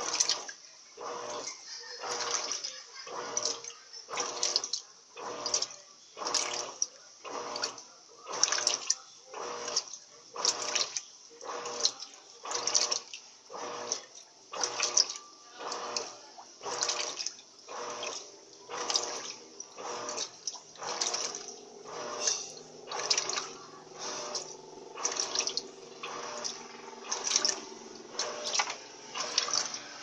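Top-loading washing machine (13 kg Turbo LT13B) agitating during a rinse at medium water level. The agitator swishes water and clothes back and forth in a steady rhythm of about one slosh a second. A steady motor hum comes in under the sloshing over the last third.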